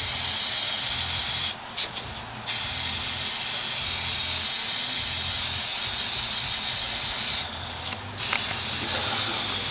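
Aerosol spray can hissing steadily as its propellant is sprayed into a potato cannon's combustion chamber to charge it with fuel. The spray stops briefly twice, about a second and a half in and again near the end.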